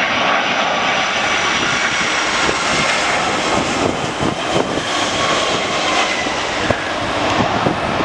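Jet2 Boeing 757's twin jet engines passing low overhead on final approach: a loud, steady jet noise with a faint whine that slowly drops in pitch. Gusts of wind buffet the microphone.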